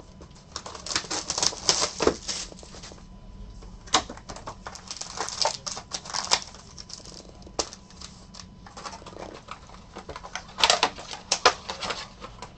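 Sealed foil trading-card packs being handled and stacked on a table: crinkling wrappers and quick clicks and taps, in three bursts.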